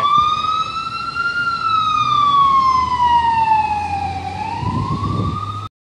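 Fire engine siren in a slow wail: the pitch rises for about a second and a half, falls slowly for nearly three seconds, then starts rising again. A brief low rumble joins near the end, and the sound cuts off suddenly.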